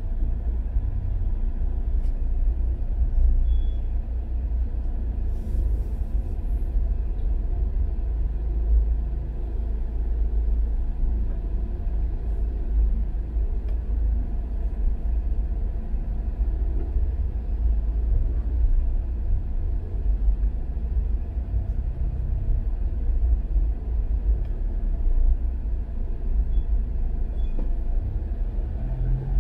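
Steady low rumble of a car's engine and road noise heard inside the cabin while creeping along in slow traffic.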